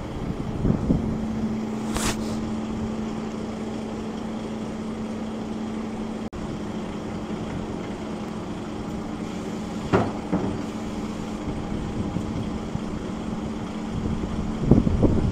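Heavy diesel engine idling steadily, with a short hiss about two seconds in and a single knock about ten seconds in.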